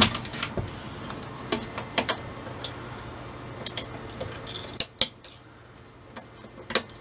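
Scattered sharp clicks and clinks of broken plastic front-panel pieces and a loose rotary encoder half being handled against the sheet-metal chassis of a bench power supply.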